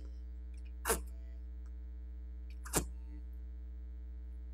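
Small silicone facial suction cup popping off the lips twice, about two seconds apart, as its suction breaks, over a steady electrical hum.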